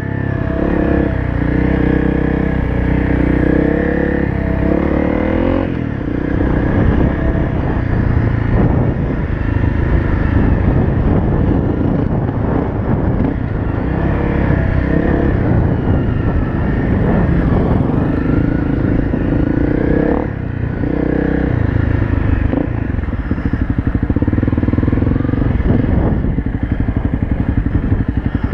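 Honda CRF250L's single-cylinder four-stroke engine running under a working throttle, its pitch rising and falling with speed. It dips briefly about twenty seconds in, then settles to a lower, steadier running near the end.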